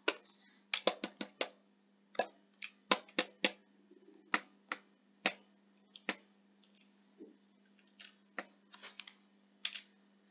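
Irregular clicking of a computer mouse and keyboard, sometimes in quick runs of three or four, with short pauses between, over a faint steady hum.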